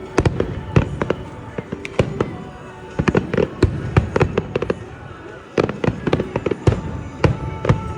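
Aerial fireworks bursting in quick succession: dense, overlapping bangs and crackles, with a short lull about five seconds in before the bangs pick up again.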